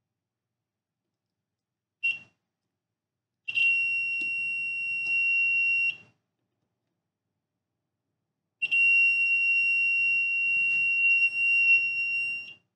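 Piezo buzzer of a homemade burglar alarm giving a steady high-pitched beep in three bursts: a short blip about two seconds in, then one of about two and a half seconds, then one of about four seconds. It sounds as a 9-volt battery is hooked up to the freshly soldered circuit, showing that the wiring works.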